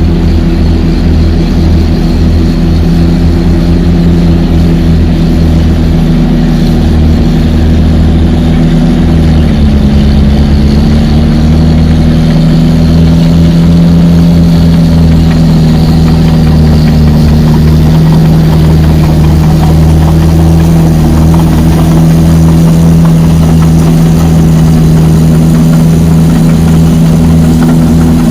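Caterpillar D7 NextGen crawler dozer's diesel engine running steadily. Its pitch dips slightly about ten seconds in, then recovers and holds steady.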